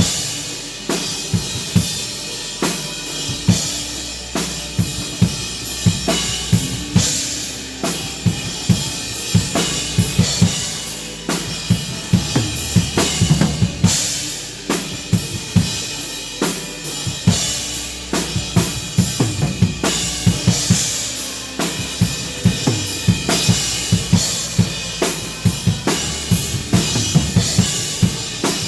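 Drum kit played in a steady praise-song groove: regular kick and snare strokes with cymbal crashes, over the accompanying worship music.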